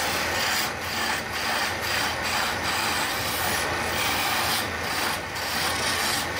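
Hand-held turning chisel cutting into a baluster spinning on a wood lathe: a continuous scraping, rasping noise of the tool shaving the wood, with short breaks every half second or so as the tool is eased off and reset. The lathe's motor gives a steady low hum underneath.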